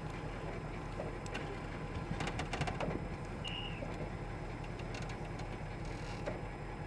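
Tow truck engine running steadily to power the hydraulic wheel lift as the arm is worked out. A quick run of clicks comes about two seconds in.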